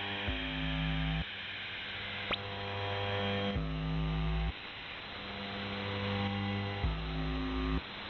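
UVB-76 "The Buzzer" shortwave signal on 4625 kHz heard through a radio receiver: three buzzes, each about a second long, roughly every three seconds. A continuous hum and radio hiss run beneath them.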